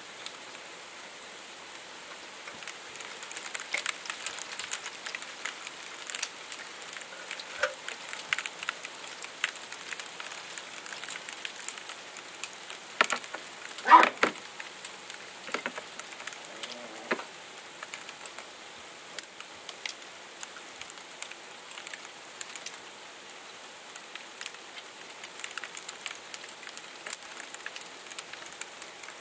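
Ice pellets falling and ticking against the window and windowsill: many small, irregular clicks over a faint hiss. One short, louder sound stands out about fourteen seconds in.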